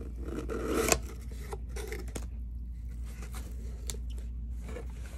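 Cardboard mailer box being pulled open: a tearing rasp of its sealing tape building over the first second and ending in a sharp pop as it gives, then light cardboard rustles and taps as the lid is lifted.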